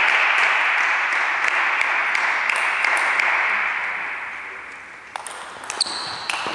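Spectators applauding after a point, the clapping fading away over about five seconds. Near the end, sharp clicks of a table tennis ball as a serve and rally start.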